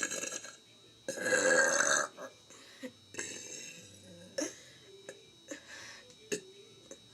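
A man burping on purpose: a short burp at the start, then a long, loud burp about a second in that lasts about a second. A few fainter short sounds follow.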